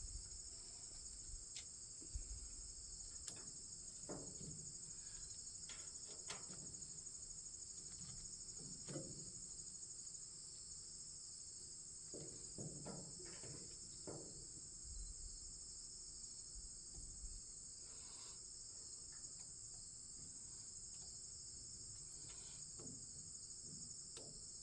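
Steady high-pitched chirring of insects, with a few faint scattered clicks and scrapes of hand work on metal.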